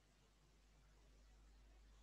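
Near silence: a faint steady low hum and hiss of the recording's background.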